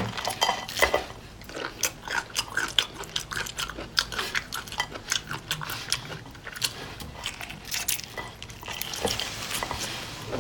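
Close-miked eating sounds: irregular biting and chewing with sharp clicks, mixed with the clink of utensils on dishes.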